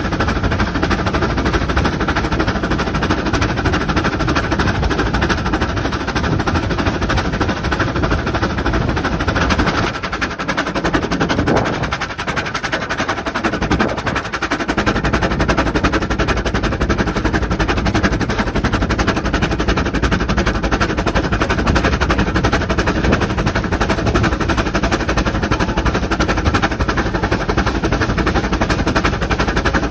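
Vale of Rheidol narrow-gauge 2-6-2 tank steam locomotive working along the line, heard from the footplate: a fast, continuous run of exhaust beats mixed with running-gear and rail clatter. The sound eases briefly about a third of the way through, then picks up again.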